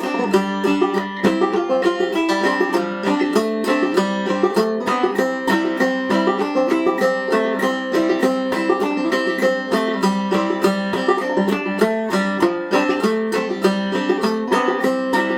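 Five-string banjo played clawhammer style in Double C tuning (gCGCD): a steady stream of quick plucked notes with a brush-and-thumb rhythm and frequent drop-thumb notes, in the key of C.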